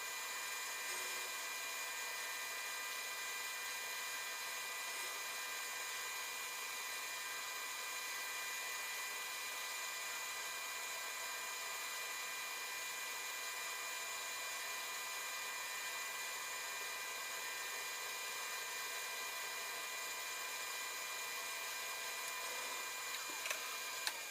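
Lathe running at a steady speed with an even high-pitched motor whine, with two short clicks near the end.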